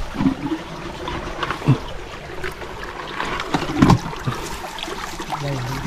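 Shallow river water sloshing and splashing as someone wades and gropes under the water by hand, with a few sharper splashes, the loudest about four seconds in.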